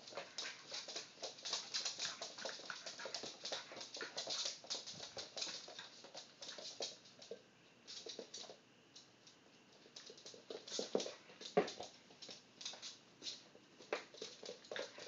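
Small dog spinning in circles chasing its tail on a wooden floor: rapid, irregular clicking and scrabbling of its claws on the boards, with one louder sound about twelve seconds in.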